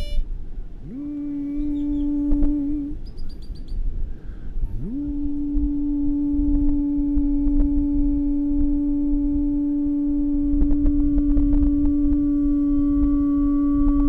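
A man's voice sounding the note D as a long hum. It slides up into the pitch and holds it for about two seconds, stops, then slides up again at about five seconds in and holds the note steadily.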